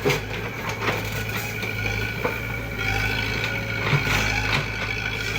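A heavy machine's engine running steadily, with scattered knocks and creaks of metal and wood.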